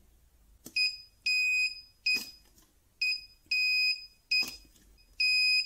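Battery spot welder beeping as its welding pen is pressed to a nickel strip: a run of high-pitched beeps, some short and some held about half a second. Sharp snaps of the weld pulses come with several of the beeps.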